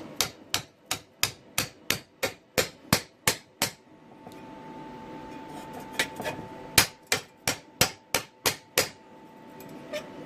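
Hammer tapping a circular-saw blade down onto its slotted handle: two runs of sharp metal-on-metal blows, about three a second, with a pause of about two seconds between them.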